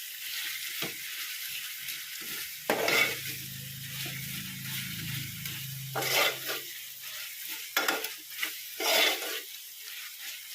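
Softened tomato, onion and ginger-garlic paste sizzling in hot oil in a pot while a utensil stirs and mashes it, with about five louder scrapes against the pot.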